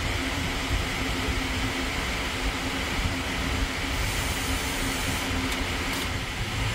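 Steady low mechanical hum and rumble with a faint constant tone, unchanging throughout.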